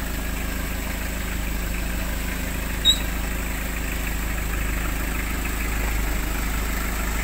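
A vehicle engine idling steadily with a low rumble, and a single brief high chirp about three seconds in.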